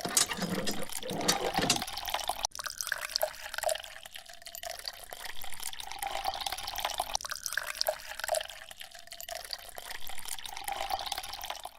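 Water running and splashing in an uneven, fluctuating hiss.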